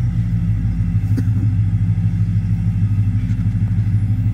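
Ram 1500's V8 idling with a lumpy, loping idle from a lope idle tune on the stock camshaft, heard from inside the cab.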